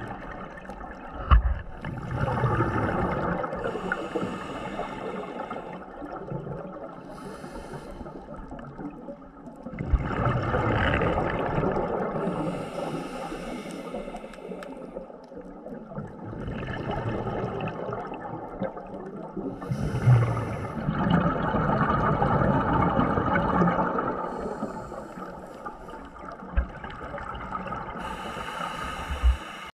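Scuba diver breathing through a regulator underwater: four long rushes of exhaled bubbles several seconds apart, with quieter regulator hiss between.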